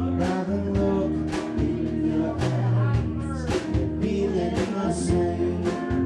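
Live rock band playing: electric guitars and electric bass over a drum kit keeping a steady beat.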